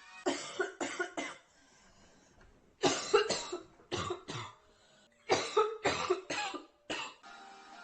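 A girl coughing nearly uncontrollably with a severe chest cold: quick runs of several hard coughs each, about five runs in all, with short pauses between them.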